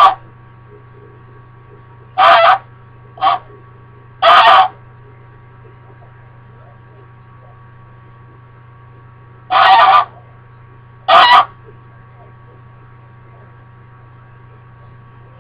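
American Buff goose honking: about six loud, separate honks, with a pause of some five seconds midway. These are the agitated calls of a pet goose upset at being left alone.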